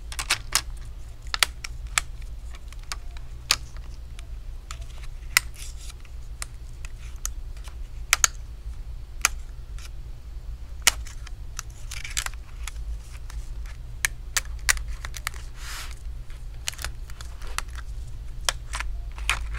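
Irregular sharp crackles and clicks as double-sided adhesive tape tears away from an HP 14 laptop's plastic screen bezel being pried off with a metal pry tool, over a low steady hum.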